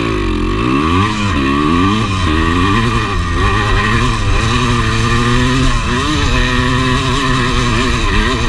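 1985 Yamaha IT200 single-cylinder two-stroke dirt bike engine under hard throttle up a steep, loose hill climb. The revs rise and drop repeatedly, about once a second.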